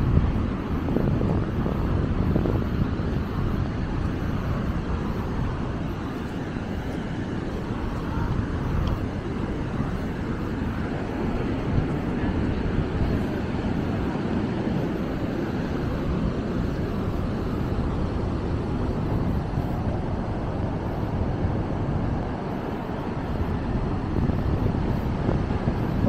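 Steady outdoor background noise, mostly a low rumble with no distinct events.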